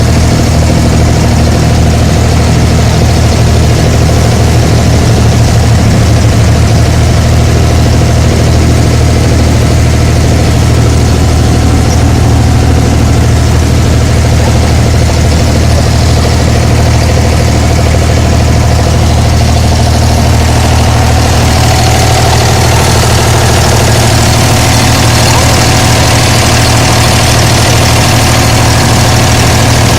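Diesel engine of an abra water taxi running steadily, loud and even, heard from on board.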